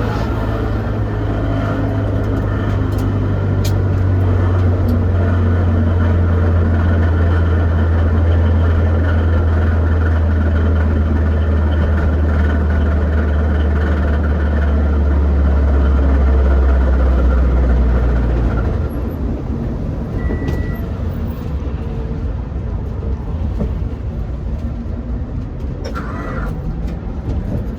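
A vehicle running with a strong, steady low drone that stops about eighteen seconds in, leaving a rougher, quieter background noise.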